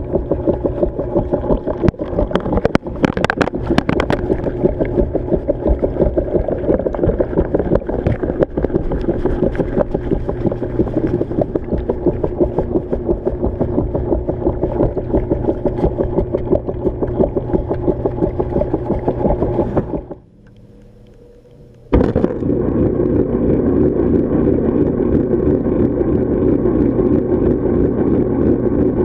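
Washing machine running during a wash, heard from inside a submerged camera housing: a steady motor drone with churning water, and a few sharp knocks about two to four seconds in. About two-thirds of the way through the sound drops away for about two seconds, then comes back suddenly.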